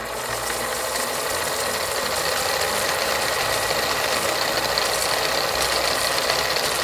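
Fast, continuous rattling sound effect that swells slightly in loudness, laid over a quiz's guessing pause.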